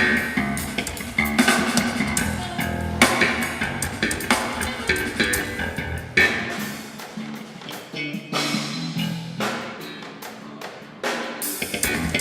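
A live band plays through a theatre PA during a sound check: drum kit, bass and guitar together. In the second half the deep low end drops out for a few seconds and comes back near the end.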